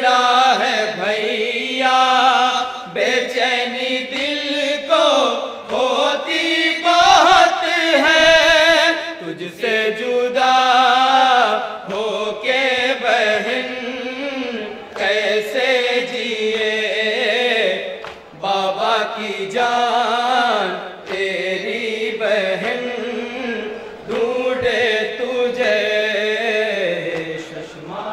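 A group of men chanting an Urdu noha (Shia lament) in unison through microphones. The melody rises and falls in long phrases, with brief breaks between lines.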